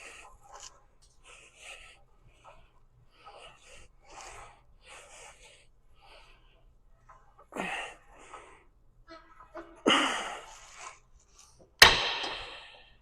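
Hard, panting breaths in short puffs about a second apart, as during a set of exercise reps, with louder exhalations toward the end. About twelve seconds in there is a sharp impact with a brief ringing tail.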